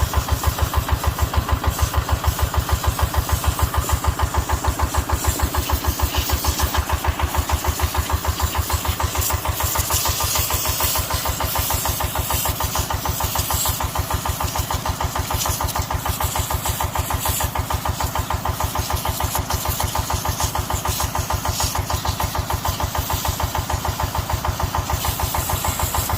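Excavator diesel engine idling with a steady, rapid, even throb.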